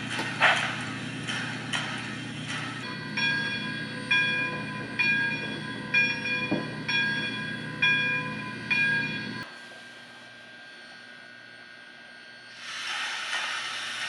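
Steam-locomotive sounds from a WOW Sound decoder in a Bachmann 4-6-0 model locomotive, played through its small speaker: a few exhaust chuffs, then a bell ringing about once a second over a running rumble. The sound drops away at about nine and a half seconds and a steam hiss comes up near the end.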